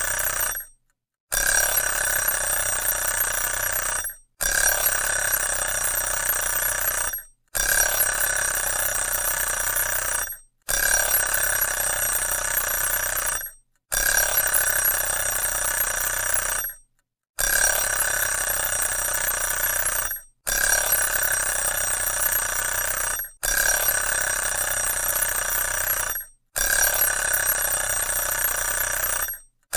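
Bell alarm clock ringing in repeated bursts of about three seconds, each cut off by a brief silent pause.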